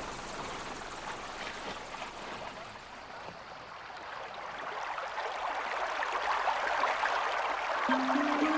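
Rushing, churning water, growing steadily louder over the second half. A few steady music notes begin near the end.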